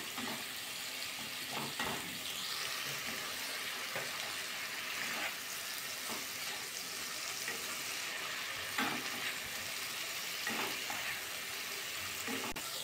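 Sliced onions with garlic and ginger paste sizzling in hot mustard oil in a kadai while being fried to cook off the raw garlic smell. A spatula stirs them, with a few short scrapes or knocks against the pan.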